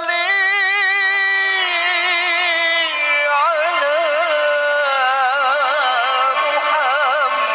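A man singing a nasheed into a microphone, holding long notes that waver in ornamented runs.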